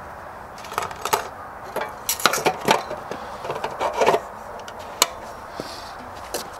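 Plastic fuel cap being fitted and screwed onto a WEN inverter generator's gas tank: a run of short rubbing, scraping clicks, then a single sharp click about five seconds in.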